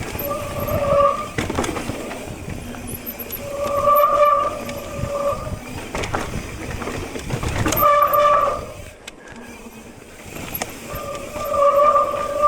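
Mountain bike disc brakes squealing in four bursts of a steady, high-pitched two-note tone as the rider brakes down the trail, over tyre and chassis rattle with a few sharp knocks.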